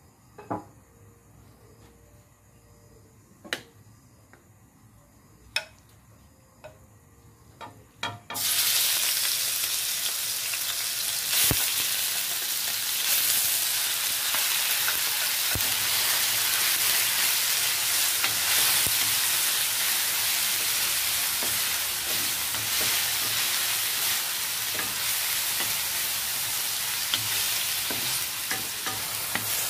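A few sharp knocks, then about eight seconds in marinated chicken pieces go into hot oil in a stainless steel wok and sizzle loudly and steadily while being stirred with a wooden spatula.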